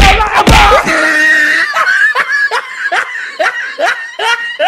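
Two heavy thumps, then a shrill voice crying out in quick repeated bursts, about two to three a second, that cuts off suddenly at the end.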